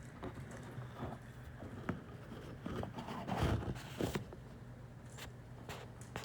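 A small caged bird moving about, making scattered clicks, taps and scratchy rustles over a steady low hum. The loudest scuffle comes about three and a half seconds in.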